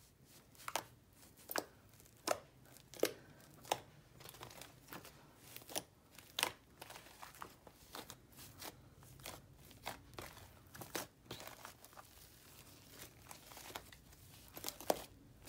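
Fluffy shaving-cream slime mixed with small crunchy beads being pressed and squeezed by hand, giving irregular sharp crackles and pops.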